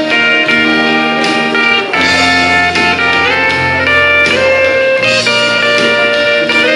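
Instrumental break of a country-gospel backing track between sung verses: held, sliding lead notes over a steady bass line.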